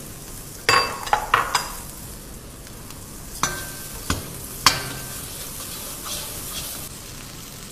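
Metal ladle knocking and scraping against a cooking pot while stirring diced cucumber and tomato into spice paste frying in oil, over a steady sizzle. There are several sharp clinks, a quick cluster in the first two seconds and three more a little past the middle.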